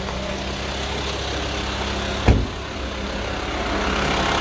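VW T5 van's engine idling steadily just after being started, getting slightly louder near the end. A single loud thump about two seconds in.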